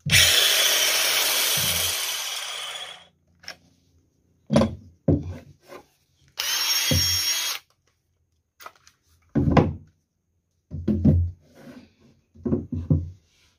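Cordless angle grinder run briefly, its whir dying away over about three seconds as it spins down. About six seconds in, a Makita cordless impact driver runs free for about a second with a steady motor whine, followed by several dull knocks of lithium-ion tool batteries being handled and set down on a wooden bench.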